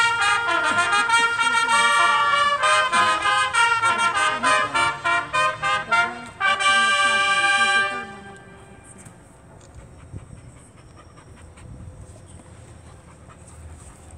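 High school marching band's brass playing a passage of short, punchy notes that ends on a long held chord about eight seconds in, after which only faint outdoor background noise remains.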